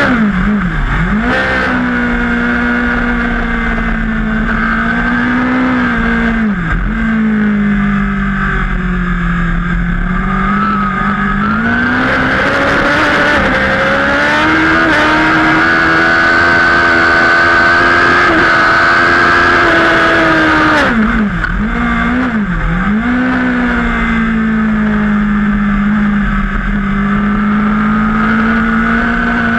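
Superbike engine heard onboard at race pace, with steady wind rush. Its pitch falls under hard braking with two quick downshift blips near the start, climbs and holds under throttle through the middle, then drops with two more downshift blips about two-thirds of the way through before pulling steadily again.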